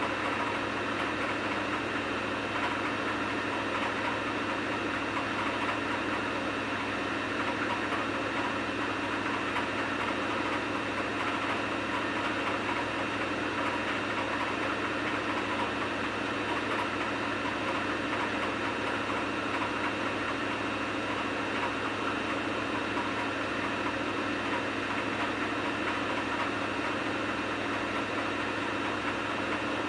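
Samsung washing machine running with a load of wet towels: a steady motor hum with several held tones, including a high whine, and no change or pause.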